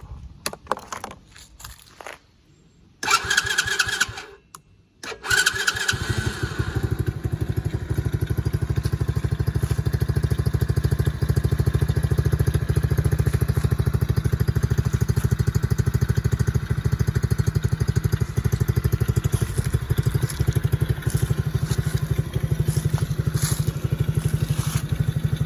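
A 110cc kids' ATV engine being started: a few clicks, a short burst of cranking, then the engine catches about five seconds in and idles steadily with even, rapid firing pulses.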